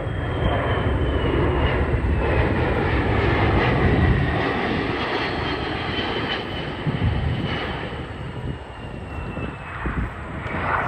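Fixed-wing aircraft flying past with its engines running. The engine noise is loudest a few seconds in and then fades, over a high whine that slowly falls in pitch.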